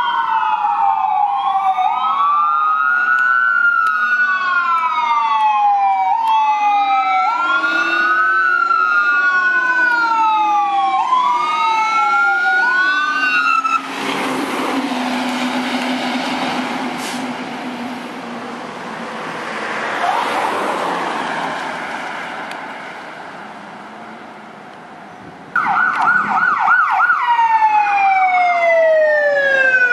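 Fire engine's electronic sirens wailing, two sirens sweeping up and down out of step as the truck approaches. About halfway in they cut off and the truck's engine and tyres rush past, then fade. Near the end an ambulance siren starts on a fast yelp, then switches to a long falling wail.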